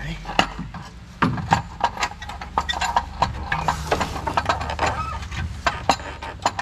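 Repeated metal knocks, clunks and scrapes as a Chevy Cruze's front catalytic converter is shoved by hand up into place against the exhaust flange and underbody heat shields, over a steady low hum.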